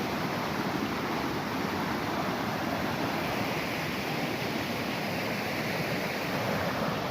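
Steady rushing of a river flowing over rocks, an even hiss with no separate events.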